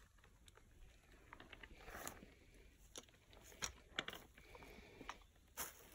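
Near silence with faint, scattered crackles and clicks, and a few sharper ticks around the middle.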